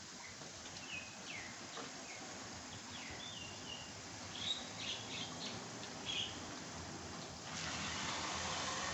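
Garden hose spraying water onto a car, a steady hiss that gets louder about two-thirds of the way in. Birds chirp in short, high calls over it during the first part.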